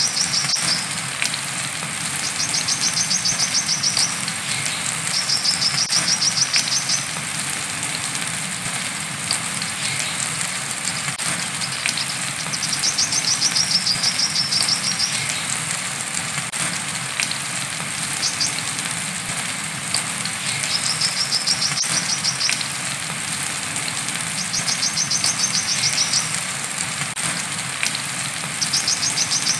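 Brown-throated (coconut) sunbird singing its 'wiceh' song: high, rapid trilled phrases about two seconds long, repeated about seven times with pauses of a few seconds, over a steady hiss of rain.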